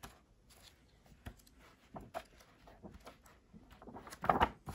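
Pages of a large art album being turned by hand: soft paper rustling and faint handling clicks, with a louder burst of handling noise about four seconds in.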